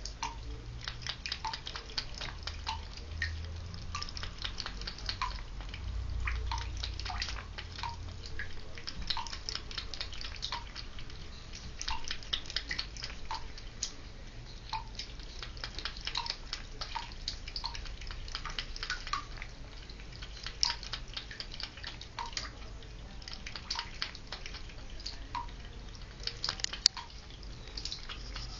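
Domestic cat lapping water from a filled bathtub: quick, light wet clicks several times a second, with a soft plink about once a second.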